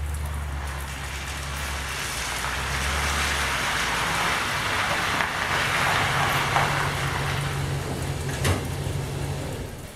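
Car on the move: a steady low engine hum under a rushing road noise that swells through the middle. There is a single sharp knock about eight and a half seconds in, and the sound drops away just before the end.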